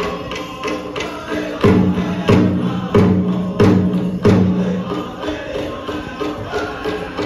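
Powwow drum group singing a chicken dance song over a steady drumbeat. In the middle, about five heavier drum strokes land roughly two-thirds of a second apart.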